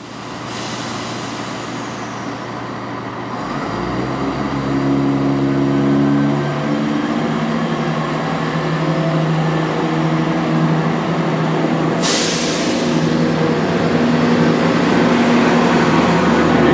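Class 170 Turbostar diesel multiple unit pulling into a station platform, its underfloor diesel engines droning steadily and getting louder from about four seconds in. A short, sharp hiss comes about twelve seconds in.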